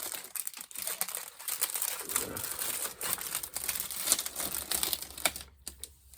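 Crinkly plastic snack wrapper being handled and opened, a busy run of sharp rustles and crackles that dies away near the end.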